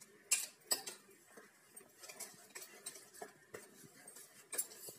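Small wire whisk clinking and scraping against a stainless steel bowl as it stirs thick gram-flour batter: irregular light clicks, the sharpest near the start and again about four and a half seconds in.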